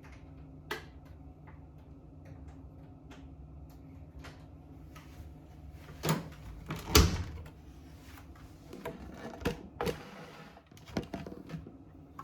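Scattered clicks and knocks of things being handled, with two louder knocks about six and seven seconds in, over a low steady hum that dies away about two seconds before the end.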